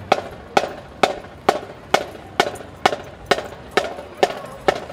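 Marching band drumline tapping out a steady marching beat: sharp, even stick clicks about twice a second.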